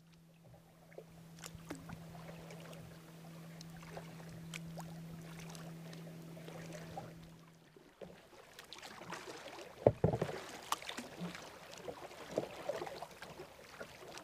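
A steady low hum for the first half, then kayak paddling close by: irregular paddle splashes and drips with sharp knocks, the loudest about ten seconds in.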